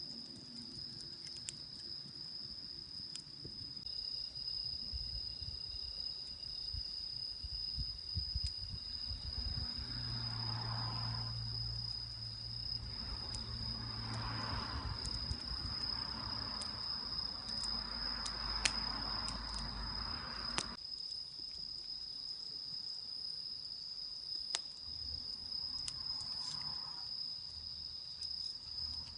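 A cricket trilling steadily in one unbroken high-pitched song, with a few sharp clicks scattered through it. A low rumbling noise swells in about a third of the way through and cuts off suddenly about two-thirds of the way through.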